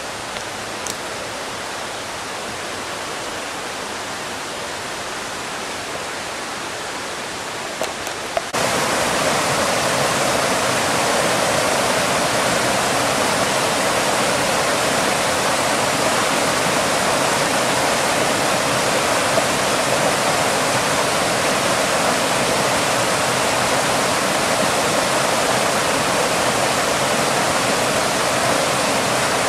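Steady rushing of a small waterfall spilling into a rocky stream pool; it becomes abruptly louder about eight seconds in and then holds steady.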